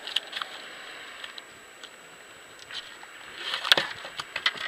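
A sheepshead flopping and slapping on a boat deck: a few quick slaps at the start and a louder cluster of them about three and a half seconds in.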